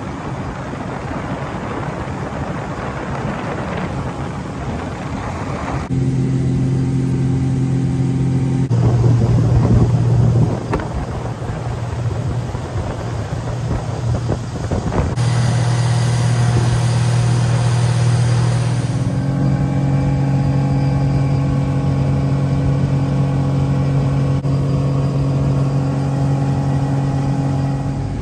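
Boat outboard motor running steadily under way, with wind and water rushing past; the engine note shifts a few times.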